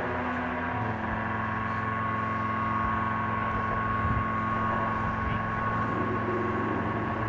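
Dark ambient soundtrack drone: layered sustained low and mid tones humming steadily, the low layer shifting about a second in.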